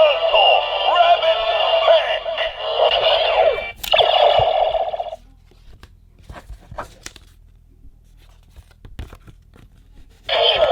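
DX Neo Decadriver toy belt playing its electronic transformation music and voice through its small speaker, with a sharp click about four seconds in. The playback stops about five seconds in, followed by scattered plastic clicks from handling the belt and its cards, and the toy sounds again near the end.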